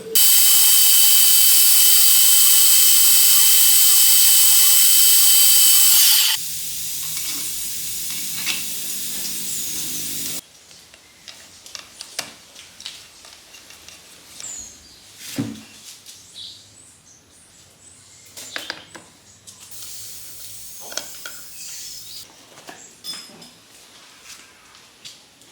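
A power tool running with a loud, steady high-pitched whine for about six seconds. It then drops to a quieter, lower steady hum for about four seconds, followed by scattered light clicks and knocks.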